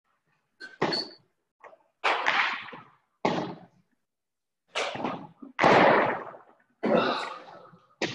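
Thuds and scuffs of people doing up-downs (burpees) on the floor, about one a second and unevenly spaced. Each one cuts off to silence, as video-call audio does.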